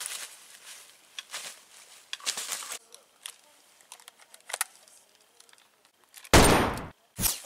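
Footsteps crunching and rustling through dry fallen leaves. About six seconds in, a loud burst of rifle gunfire lasting about half a second, then one more short shot.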